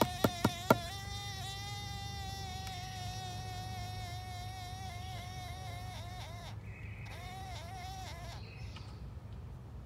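A few sharp clicks, then a carpenter bee buzzing inside its bored tunnel in a wooden staff: a steady, slightly wavering drone that breaks up and stutters after about six seconds and stops a couple of seconds later.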